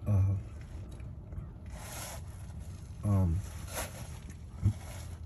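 A man's voice making two short hesitant sounds, about three seconds apart, with faint scraping and rubbing noises between them.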